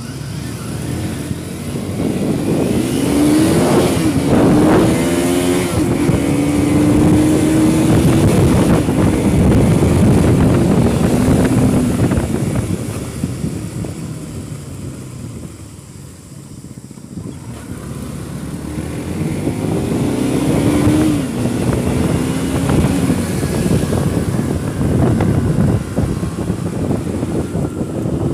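Small sport motorcycles accelerating on a ride, engine pitch climbing and dropping at the gear changes twice, over steady wind and road rush; it eases off for a few seconds in the middle.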